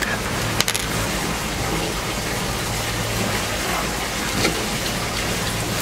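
Steady machine noise: a constant low motor hum under a loud, even hiss, starting abruptly and holding level throughout.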